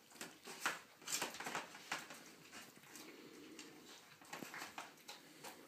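Dog eating soft liver pâté from a shallow bowl on the floor: irregular wet licking and smacking with short clicks, several a second.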